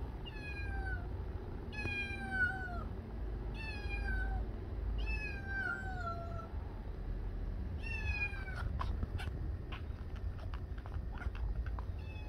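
Cat meowing: five drawn-out meows, each falling in pitch, spread over the first eight seconds, followed by a run of light, irregular clicks.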